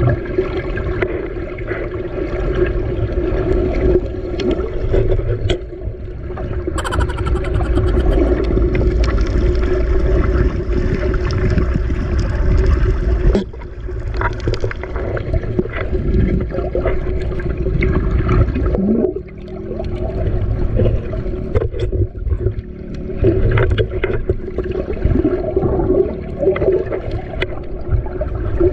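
Boat engine running steadily with a constant drone, over the rush and splash of sea water.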